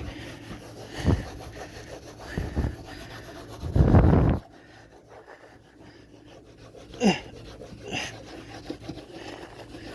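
Wet towel scrubbing a refrigerator door with soapy water in a few rubbing strokes, the loudest and longest about four seconds in.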